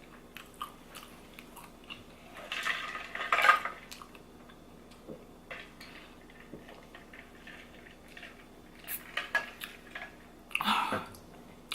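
Close-up eating sounds: scattered clicks of cutlery on a plate and chewing, with a denser, louder clatter about three seconds in and another short burst near the end.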